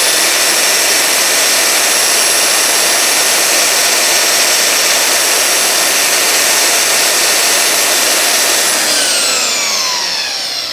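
Makita 9403 4x24-inch belt sander running at full speed with a steady high whine while a wooden stick is held against the moving belt and ground down quickly. About nine seconds in it is switched off and the whine falls as the motor and belt coast down.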